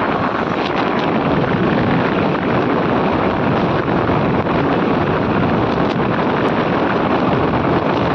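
Steady wind rush buffeting the microphone of a motorcycle on the move, with vehicle noise blended in beneath it.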